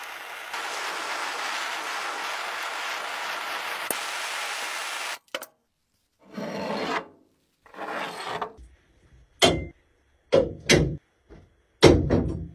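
Steady machine noise for about five seconds that cuts off abruptly, then a series of separate rubbing or filing strokes, two longer ones followed by four short, sharp ones, the sound of hand-abrading a part.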